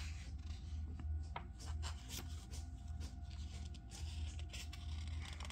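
Comic book pages being handled and turned: soft paper rustles and a few light clicks over a steady low hum.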